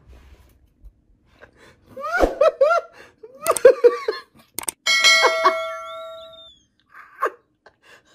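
A person laughing in short gasping bursts, then a click and a bell-like chime: the sound effect of a subscribe-button animation.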